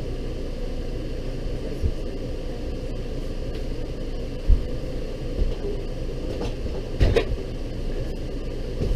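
Dull thumps and knocks as a refrigerator is lifted and worked into an RV's fridge cabinet opening, the loudest about four and a half and seven seconds in, over a steady low rumble.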